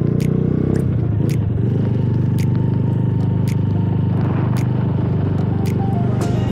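Motorcycle engine running steadily while the bike cruises along a road.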